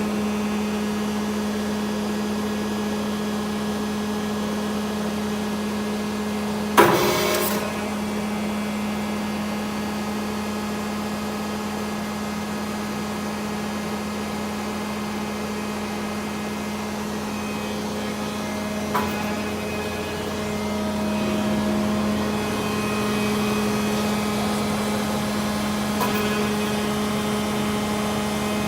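Hydraulic pump of a CNC hydraulic tube bender running with a steady hum. A single sharp metallic clunk comes about seven seconds in, with lighter clicks later.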